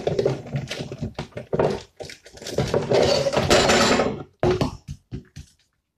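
Kitchen handling sounds: a plastic measuring spoon and utensils knocking and scraping against a mixing bowl, with a string of sharp knocks and a longer scraping, rustling stretch in the middle.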